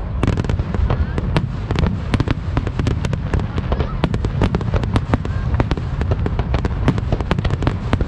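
Aerial fireworks shells bursting in quick succession: a dense run of sharp bangs and crackles, several a second, over a continuous low rumble.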